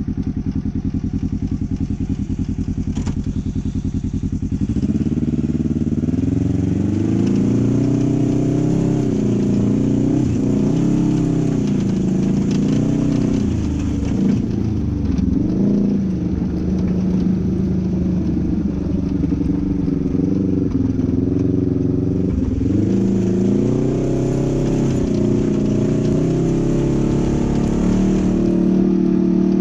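Polaris RZR 900 XP side-by-side's twin-cylinder engine idling steadily. About five seconds in it comes under throttle and grows louder, its pitch rising and falling repeatedly as it drives.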